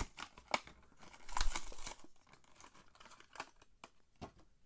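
Clear plastic blister packaging of a die-cast toy car crinkling and crackling as it is pulled off its cardboard card, loudest about a second and a half in, then sparse clicks as the car is worked out of the plastic shell.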